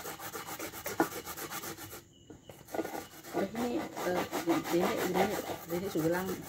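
Coconut flesh being grated by hand on a board grater: quick, even rasping strokes, breaking off for about half a second roughly two seconds in.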